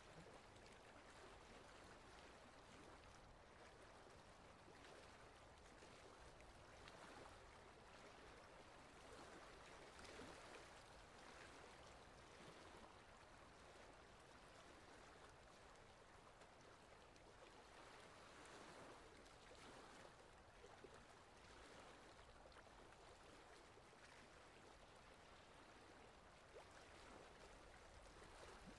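Faint swish and lapping of water against a small boat moving across open water, swelling a little now and then.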